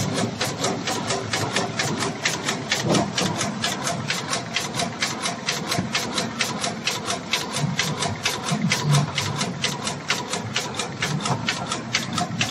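Automatic paper carton erecting machine running: a steady, rapid mechanical clatter of about five strokes a second from its feeding and forming mechanism.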